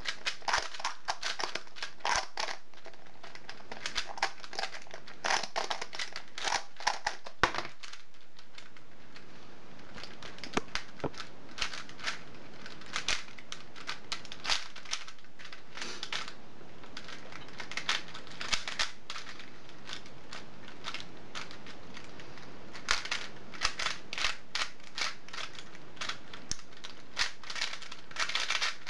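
Plastic speedcubes being turned fast during a timed solve: a dense run of quick clicks and clacks from the layers snapping round, which thins out for a moment about eight seconds in.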